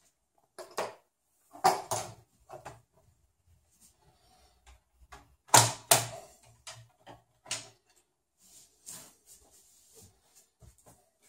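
Scattered clicks and knocks of an open sheet-metal desktop computer case and a screwdriver being handled, with two louder double knocks, about two seconds in and again near the middle.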